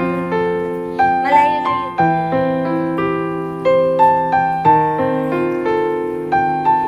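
Background music: a slow, gentle piano melody over sustained chords, each note struck and then fading.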